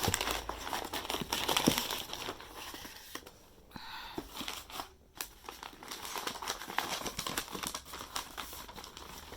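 Packing material in a box crinkling and rustling as it is handled, with many irregular crackles, loudest in the first couple of seconds.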